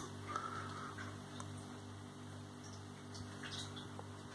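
Quiet room tone: a low steady hum with a few faint, scattered clicks.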